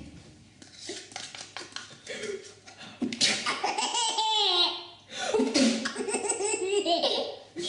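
A baby laughing hard from the belly in two long fits, starting about three seconds in and again about two seconds later.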